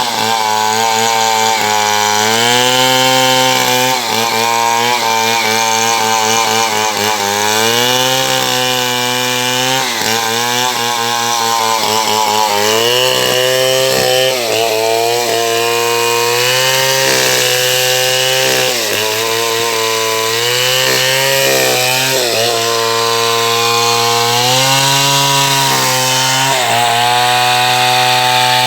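Two-stroke chainsaw running under load, cutting wood. Its engine pitch sags each time the chain bites in and climbs back again every couple of seconds.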